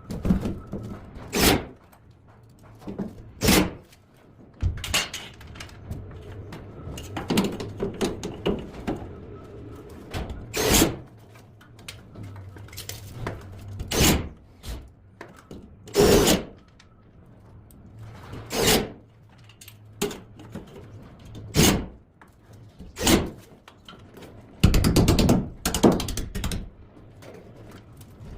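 Irregular knocks and clunks from hands-on HVAC ductwork installation, about one every one to two seconds over a low steady hum, with a denser run of clattering near the end.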